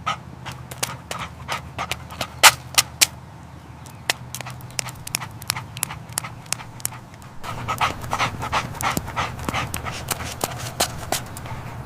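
Golden retriever panting, with a quick irregular run of short sharp clicks and taps over a steady low hum. It grows louder and busier about seven and a half seconds in.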